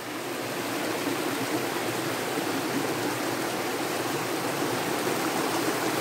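Small rocky stream running and splashing over stones in a low cascade: a steady rush of water that grows a little louder about half a second in.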